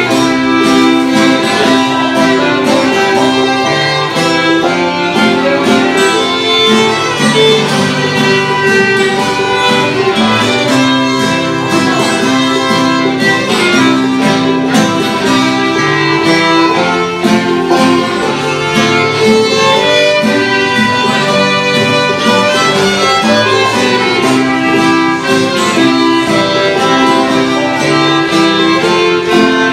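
Live old-time string band playing a waltz: two fiddles carrying the melody over a strummed acoustic guitar, steady throughout.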